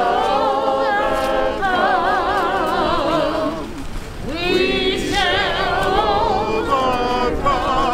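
A singing voice holding long notes with a wide vibrato, breaking off briefly about four seconds in and then going on.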